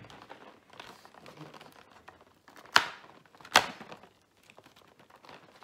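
Cardboard door of a Kinder advent calendar being pushed in and torn open along its perforation: light rustling of the box with two sharp cracks a little under a second apart.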